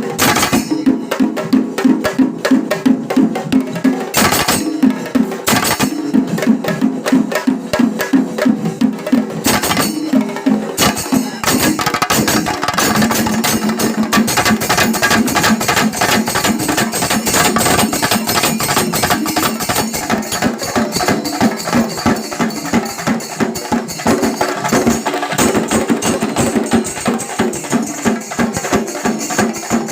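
Kerala temple festival percussion ensemble playing a fast, dense drum rhythm. The strokes run together more thickly from about twelve seconds in.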